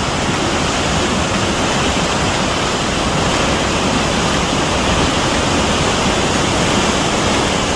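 Athabasca Falls, a large waterfall, pouring with a loud, steady rush of falling water.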